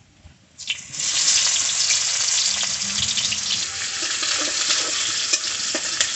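Onion dropped into hot oil and cumin in a kadhai: a loud frying sizzle starts suddenly just under a second in and carries on steadily, with light clicks of a metal ladle stirring in the pan.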